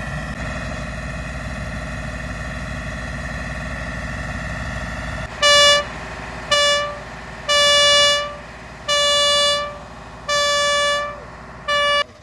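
A vehicle's engine running steadily, then a loud horn sounding six times at a steady pitch, starting about five seconds in; some blasts are short and some held a little longer.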